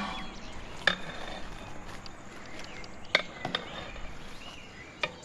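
Outdoor background noise broken by four short, sharp knocks, with faint chirps in the background.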